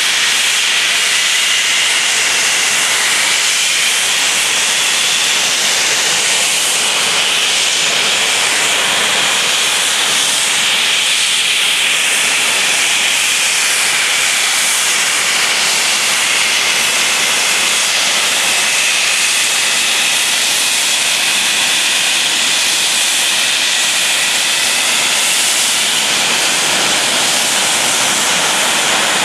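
Rolls-Royce Avon turbojets of two English Electric Lightning F6 jets running steadily on the ground: a loud continuous hiss with a high whine that shifts a little in pitch.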